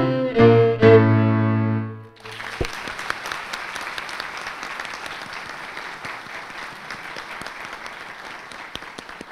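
Instrumental music ends on a few last notes, the final one held until about two seconds in; then an audience applauds, the clapping slowly fading.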